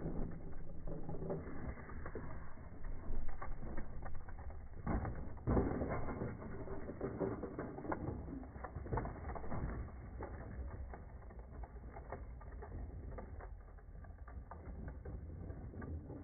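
Slowed-down, low-pitched rattling and clicking of a child's bicycle with plastic training wheels rolling over concrete, with a louder clatter about five seconds in.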